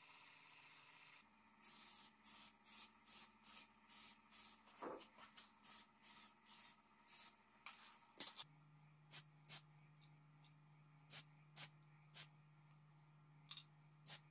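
Aerosol spray can hissing in short bursts, about two a second for several seconds, then a few separate bursts.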